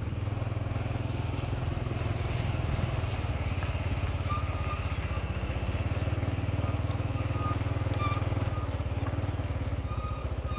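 A small engine running steadily at an even speed, with a few faint short chirps over it.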